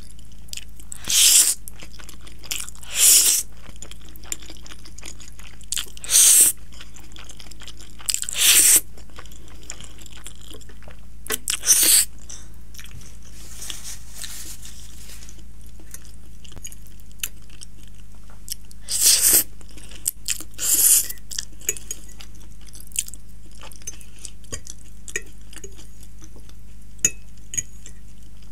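Close-miked eating of soft cream-sauced spaghetti: chewing and slurping, with about seven short, loud, wet mouth noises spaced through it, two of them close together about two-thirds of the way in.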